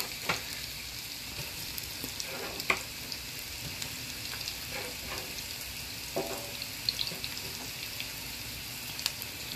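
Sliced onion frying in hot oil in a nonstick pan: a steady sizzle with scattered small crackles.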